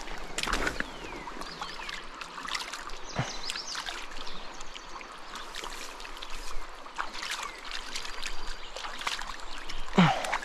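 River water running over rocks, with irregular small splashes.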